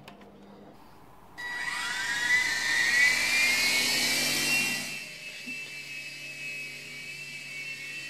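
Small coaxial toy RC helicopter's electric motors and rotors starting up with a whine that rises in pitch about a second and a half in. It is loudest for a few seconds, then settles to a quieter steady whine as the helicopter flies.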